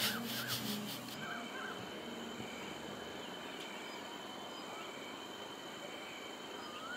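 Night insects such as crickets calling, a steady high trill with a short chirp repeating about once a second. Faint voices are heard briefly at the very start.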